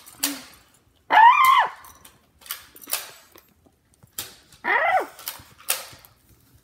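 Crisp pretzel crunches from chewing, sharp and irregular, about one every half second to second. A dog gives two short high whines over them: one rising and falling about a second in, the louder of the two, and one sliding down in pitch about four and a half seconds in.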